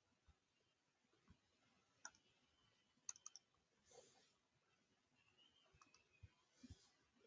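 Near silence with a few faint computer mouse clicks: one about two seconds in, three quick ones about a second later, and two more near six seconds.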